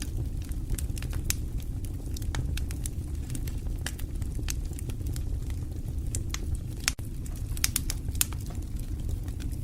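Fire crackling: irregular sharp pops and snaps over a steady low rumble, with a brief dip about seven seconds in.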